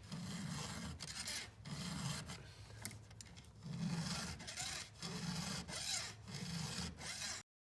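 Round file being pushed freehand across the cutter teeth of a Stihl MS 250 chainsaw chain, sharpening them, in about five steady rasping strokes roughly a second apart. It stops abruptly near the end.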